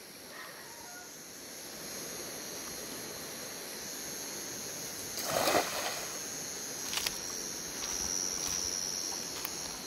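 Steady high-pitched chorus of night insects. A short noise comes a little past halfway, and a faint click about two seconds later.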